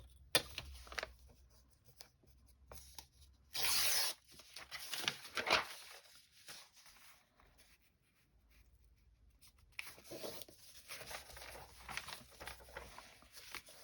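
Sheets of journal paper being handled, folded and creased: irregular rustling and rasping, loudest in a short rasp about four seconds in, quieter in the middle, then more rustling near the end.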